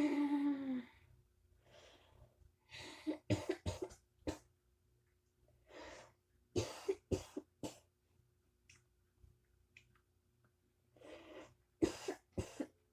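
Repeated bouts of coughing: a short falling voiced sound at the start, then clusters of short hacking coughs about three seconds in, again around six to seven seconds, and once more near the end.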